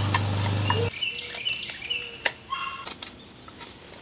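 A steady low engine hum that cuts off abruptly about a second in. After it come short bird chirps and scattered sharp clicks of a knife cutting into the wooden spoon.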